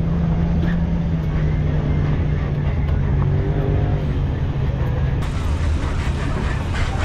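Pickup truck engine running steadily while driving slowly on dirt, a low drone with a steady hum that sinks slightly in pitch over the first few seconds.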